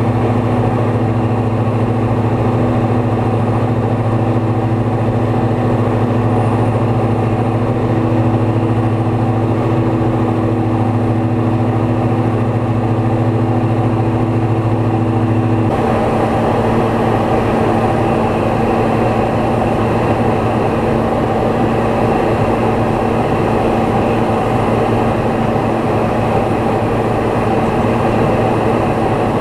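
Small propeller aircraft's piston engine and propeller droning steadily, heard from inside the cabin. About halfway through, the drone's pitch pattern shifts abruptly, then runs on steadily.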